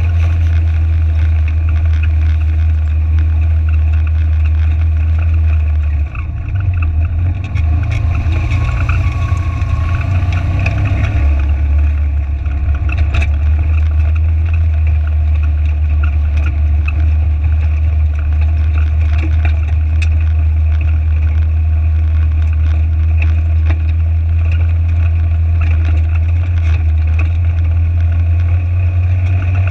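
Side-by-side UTV's engine running steadily under load as it drives out of shallow creek water and across gravel, heard from a camera mounted on the vehicle. The low engine drone changes for a few seconds about six seconds in, then settles back.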